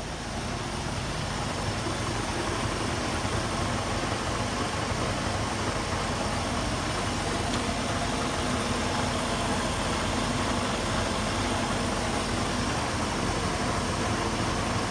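The twin carbureted gasoline inboard engines of a 1985 SkipJack 28 flybridge idling steadily after being throttled back, heard close to the open engine compartment. The sound grows a little louder over the first couple of seconds, then holds even.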